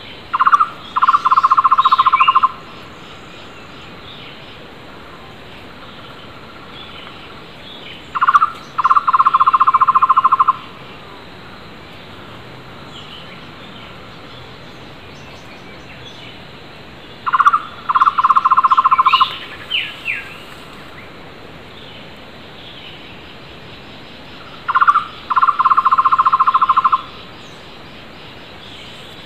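Takur tohtor (flame-fronted barbet) calling four times, several seconds apart. Each call is a short note followed by a fast, even trill of about two seconds. Fainter calls of other wild birds come between them.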